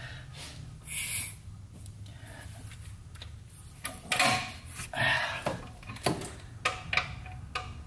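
A socket on an extension being fumbled into an engine's spark plug hole by hand: scattered scrapes, light metal clicks and rustling, with a brief scuffle about a second in and more handling noises in the second half.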